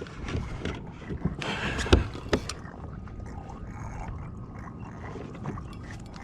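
Water sloshing around a Hobie Outback plastic fishing kayak, with a few sharp knocks on the hull between one and two and a half seconds in, the loudest about two seconds in.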